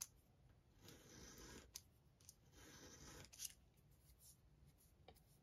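Two faint strokes of a 5 mm round wooden dowel being drawn across sandpaper while it is turned, sanding its end round, followed by a light click.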